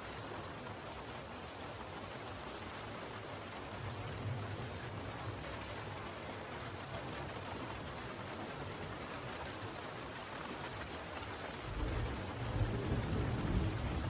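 Steady rainfall, an even hiss of rain on surfaces, with a low rumble of thunder rising near the end.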